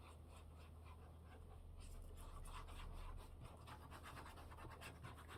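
Faint scratching and rubbing as glue is worked onto cheesecloth, over a low steady hum.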